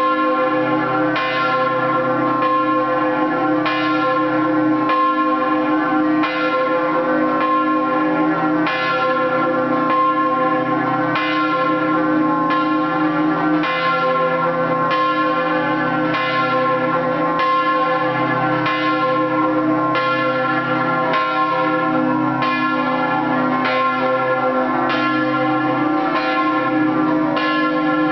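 Scampanottata on three church bells in C cast by De Poli of Udine. The clappers are struck against the hanging bells in a rhythmic pattern that repeats steadily about every second and a quarter, with the bells ringing on between strikes.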